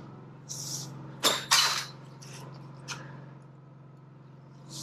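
Two sharp clanks from aluminum trim stock being worked in a sheet-metal siding brake a little over a second in, then a lighter click near the middle, over a steady low hum.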